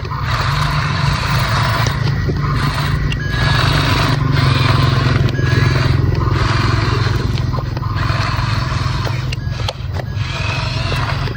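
Remote-control toy excavator's small electric motors and gears whirring in repeated bursts about a second long as its controls are worked, over a steady low hum.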